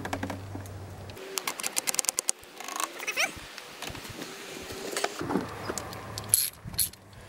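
A few short animal cries with wavering, gliding pitch, mixed with a run of quick clicks about a second in and a couple of sharp clicks near the end.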